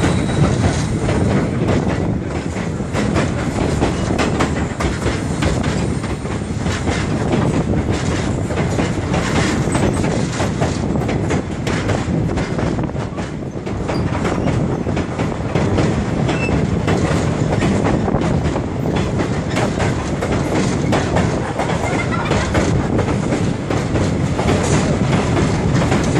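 Train wheels rumbling and clattering over the rails, heard from aboard a moving passenger car, with a steady run of clicks and rattles.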